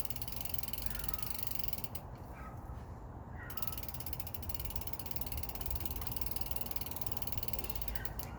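Bicycle rear freehub clicking rapidly and evenly as the wheel turns. It pauses for about a second and a half around two seconds in, then resumes.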